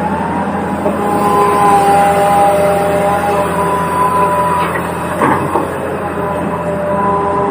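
Toy RC excavator's small electric motors and plastic gears whining steadily, the pitch shifting slightly about a second in, with a brief rattle of clicks about five seconds in.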